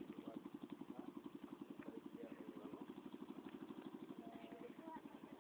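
Small engine of an outrigger boat running steadily with an even putter, about nine beats a second.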